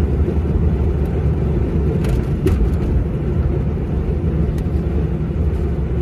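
Steady low rumble of a Renault Espace driving along, engine and tyre-on-tarmac noise heard from inside the cabin.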